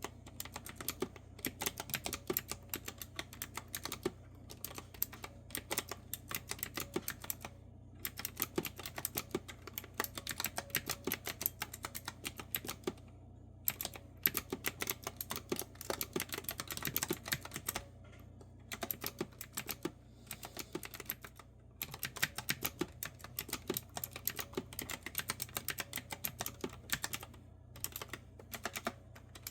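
Typing on a clicky retro-style keyboard with round keys: fast runs of crisp keystrokes broken by short pauses every few seconds.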